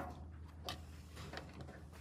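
A few light clicks and taps from an adult Akita's paws and claws on the floor as she steps in, over a low steady hum.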